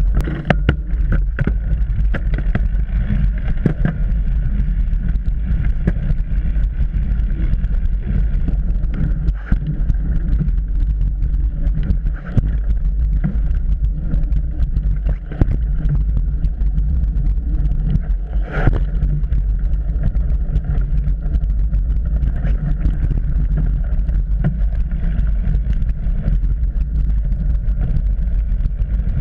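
Trek Remedy 8 mountain bike riding dirt singletrack, heard through a GoPro mounted on the bike: a steady low rumble of tyres on the trail and wind, with frequent rattles and knocks from the bike over bumps and one sharper clack about two-thirds of the way through.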